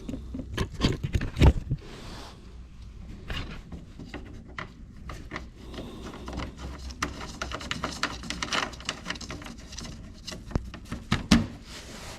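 Irregular clicks, knocks and rubbing of hand work as plastic under-car panels and their bolts are handled and fitted back on a VW Golf, with a sharper knock about a second and a half in and another near the end.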